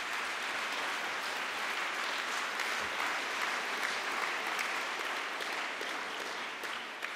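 Audience applauding steadily, then tapering off near the end.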